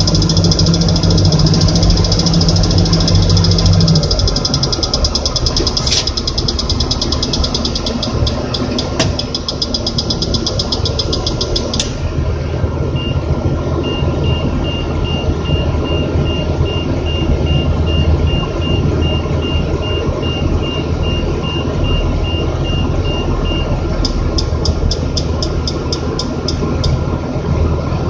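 Crane engine running steadily. About halfway through, a high beep repeats in quick, even dashes for about ten seconds: the load moment indicator's warning that the crane is approaching its overload capacity. Bursts of fast ticking come before and after the beeping.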